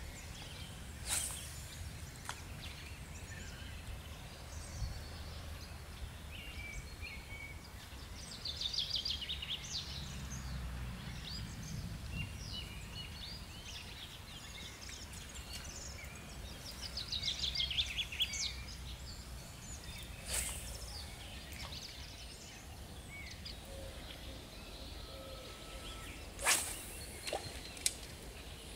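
Small birds singing, with two stretches of rapid trilling song, one about eight seconds in and another about seventeen seconds in, plus scattered chirps over a steady low rumble. A few sharp clicks stand out briefly.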